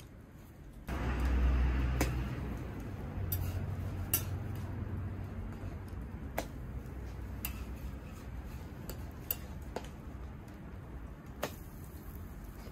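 Metal spatula clicking and scraping against a flat steel griddle as pancakes are flipped, a sharp click every second or so. A low rumble comes in suddenly about a second in and is the loudest sound near the start.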